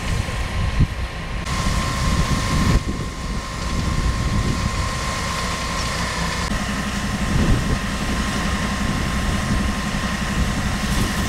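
Heavy engine of a water tanker truck running steadily at idle, a constant low rumble with a steady hum added about six seconds in.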